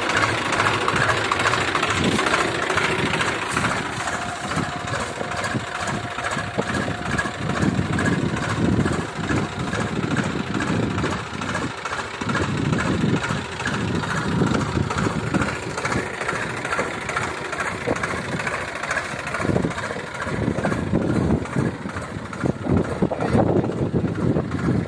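Swaraj 735 FE tractor's three-cylinder diesel engine running steadily as the tractor drives slowly through a groundnut field.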